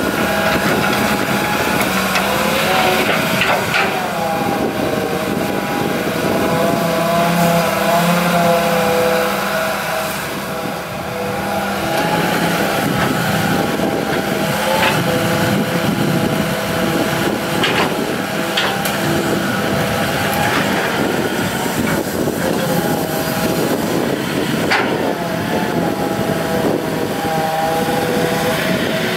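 Hitachi EX200-3 hydraulic excavator working soil: its diesel engine and hydraulics run under load, with a whine that rises and falls as the boom and bucket move. There are a handful of sharp knocks from the bucket and arm.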